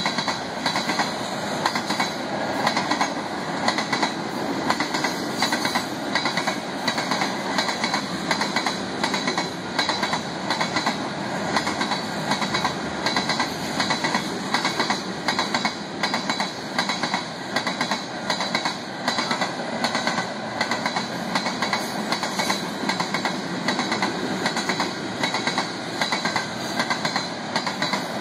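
Loaded covered hopper cars of a frac sand freight train rolling past. The steady rumble of the wheels is broken by regular clusters of clickety-clack as each set of wheels crosses the rail joints.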